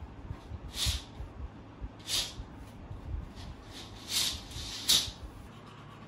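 Curtains being drawn open: four quick swishes of fabric and runners sliding along the curtain rail, the last one the sharpest.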